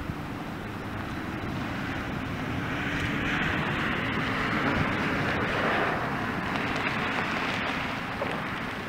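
A vehicle passing, its rushing tyre and air noise swelling to a peak about halfway through and then fading, over a steady background of wind.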